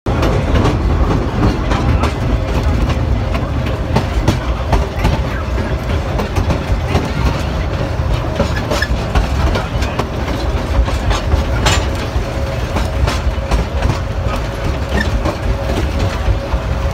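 Narrow-gauge rail cars rolling behind the small motor car M-7: a steady low rumble of wheels on the track, broken by many irregular clicks and clanks, with a faint steady whine throughout.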